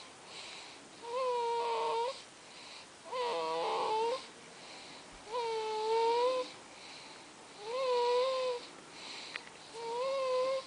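Rhythmic snoring, five snores about two seconds apart, each a second-long breath with a high, whining, whistly tone over a hiss.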